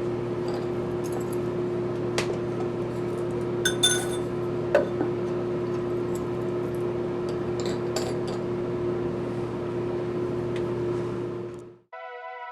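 A few light clinks of glass over a steady hum and hiss. Near the end this cuts off suddenly and soft electronic music comes in.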